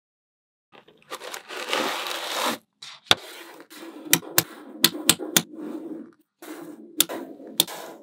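Magnetic balls being handled: about a second in, a loud scraping rattle of balls shuffled against each other, then a run of sharp clicks as balls snap together, with a softer rattle between them.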